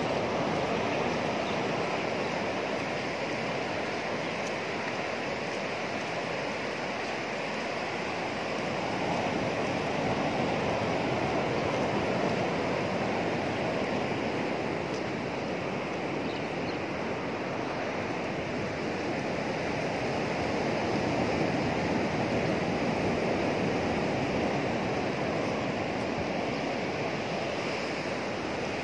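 Sea surf breaking along a flat sandy beach: a steady wash of waves that swells and eases slowly, roughly every ten seconds.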